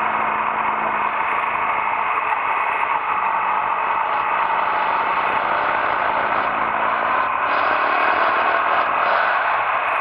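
Steady wind rush and running noise of a motorcycle at road speed, heard from a camera mounted on the bike, with no change in level.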